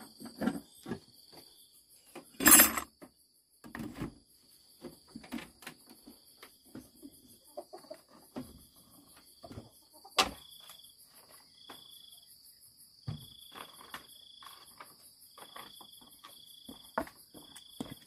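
Insects chirping steadily in a high, pulsing drone, with a shorter high chirp repeating about once a second in the second half. Scattered knocks, clicks and thumps of outdoor work run through it, the loudest a thump about two and a half seconds in and a sharp click about ten seconds in.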